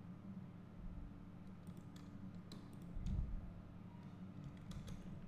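Faint, scattered clicks of a computer keyboard and mouse, with a cluster of taps in the middle and a few more near the end, over a low steady hum.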